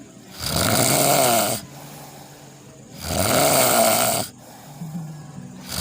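Snoring in a steady rhythm: two loud snores, each lasting just over a second and about two and a half seconds apart, with a quieter breath between them. A third snore begins at the very end.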